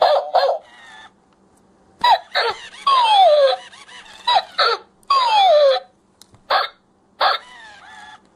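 Recorded barks and whines from the speaker of a battery-powered plush robot husky toy: short yaps, mostly in quick pairs, with two longer whimpers that slide down in pitch near the middle.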